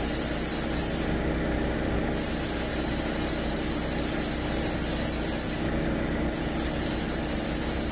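Refrigerant hissing out through the AC recharge hose's trigger valve as an overcharged car air-conditioning system is bled down, the hiss cutting off twice when the trigger is released, about a second in and again near six seconds, then starting again. The car's engine runs steadily underneath.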